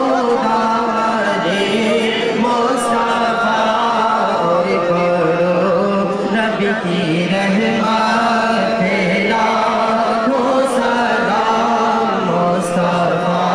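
Male voices chanting a Sallam, a devotional salutation to the Prophet Muhammad, in long held melodic lines over a steady low pitch.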